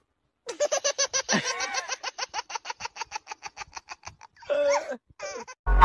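Hearty laughter in a long run of quick, even 'ha-ha-ha' bursts, about eight a second, followed by a few shorter voiced laughs near the end.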